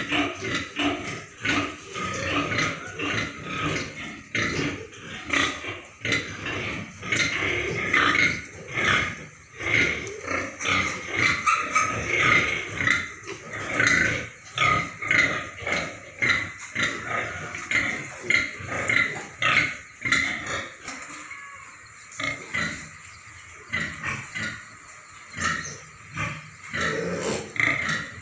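A sow and her piglets calling in a pen, with many short grunts and squeals packed close together. The calls thin out and grow quieter after about twenty seconds.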